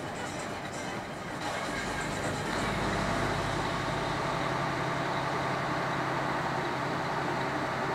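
Car's engine and tyre noise heard inside the cabin while driving: a steady hum with road noise that grows louder about two seconds in, then holds.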